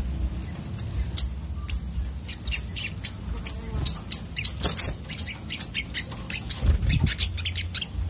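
Olive-backed sunbirds calling: a rapid run of short, sharp, high chips, about two to three a second, starting about a second in.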